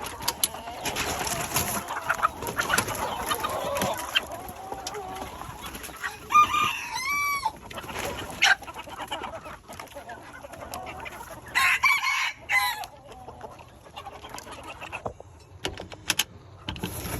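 Chickens clucking, with a rooster crowing twice: once about six seconds in and again about twelve seconds in.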